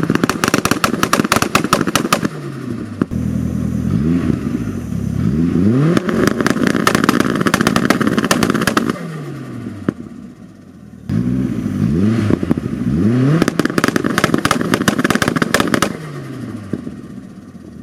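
Turbocharged 1.3-litre eight-valve four-cylinder of a 1989 VW Polo 86c revved hard in repeated bursts. The revs climb steeply and are held high while the exhaust crackles and pops rapidly from the antilag, then fall away, with a short lull about ten seconds in before the next burst.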